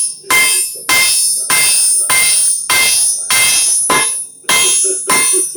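Blacksmith's hammer striking on an anvil: about ten evenly spaced blows, roughly one every 0.6 seconds, each followed by a bright metallic ring.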